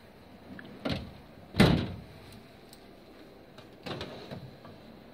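Drawers of a US Pro steel tool chest: one is pushed shut with a click and then a heavy thump about a second and a half in. Near the end another drawer is pulled open with a short metallic rattle on its slides.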